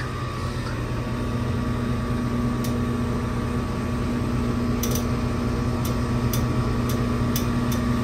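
Heat pump outdoor unit with its compressor running, a steady hum with a few faint ticks in the second half. It runs with suction and liquid pressures equalized, which the technician puts down to a reversing valve stuck in the middle that gave only a click and no swoosh when energized.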